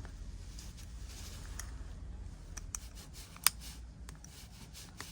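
Small clicks and light scraping of a prying tool working under an iPhone 11 Pro battery to lift it, with one sharper click about three and a half seconds in.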